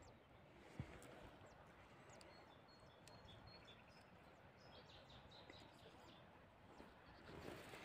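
Near silence: faint outdoor background with a few faint high chirps, a single soft click about a second in, and light rustling near the end.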